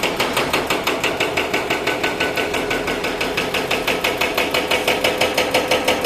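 Pneumatic jackhammer-type tool on a construction site, hammering steadily and rapidly at about six blows a second, with an engine running underneath.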